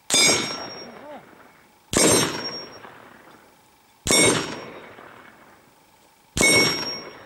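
Four rifle shots about two seconds apart, each hitting a steel gong target that rings out with a bright metallic clang and then dies away.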